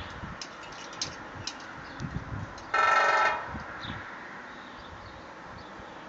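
A woodpecker drumming on the sheet-metal air cleaner housing on the roof of a 1972 Dodge cabover truck: one loud roll about half a second long, midway, with a few faint taps before it.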